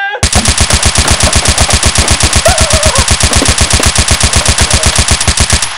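Long burst of automatic machine-gun fire sound effect: rapid, evenly spaced shots that start abruptly just after the beginning and cut off sharply near the end.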